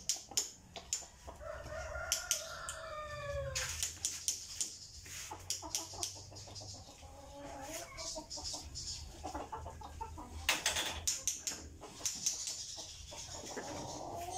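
A rooster crowing: one long call starting about a second and a half in, dropping in pitch at the end, with more chicken calls later. Frequent sharp clicks and taps throughout.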